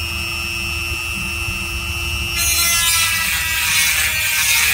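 Electric chainsaw sharpener's small grinder motor running at its lowest speed with a steady whine. About two and a half seconds in, the 5/32 grinding bit bites into a chain tooth and a louder, harsh grinding hiss starts as the tooth is ground down.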